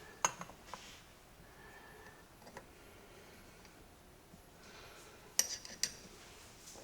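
Faint, scattered clicks and taps of faucet parts being handled while they are fitted back on: a few near the start and a quick cluster about five and a half seconds in.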